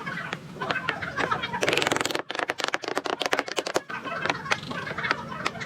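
Workshop clatter of sharp clicks and knocks, with a short burst of fast rattling about two seconds in.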